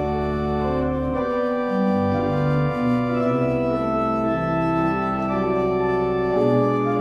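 Organ playing a slow prelude of sustained chords over held bass notes, the harmony changing every second or so.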